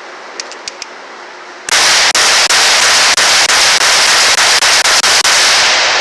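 Rapid semi-automatic rifle fire: from about two seconds in, shots follow one another several times a second, so loud that the recording overloads. A few faint clicks come first.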